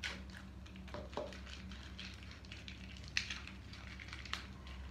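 Light handling noise of small plastic toys: a red plastic toy capsule being opened, with a few sharp clicks scattered through and soft crinkling between them, over a low steady hum.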